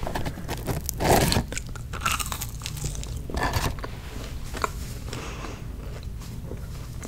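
Chick-fil-A waffle fries being bitten and chewed right at the microphone: a loud crunchy bite about a second in, then a run of smaller crunches as they are chewed.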